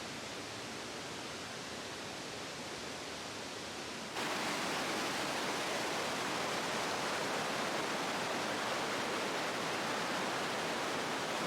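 Rushing water of a mountain stream or river, a steady hiss; it jumps louder about four seconds in.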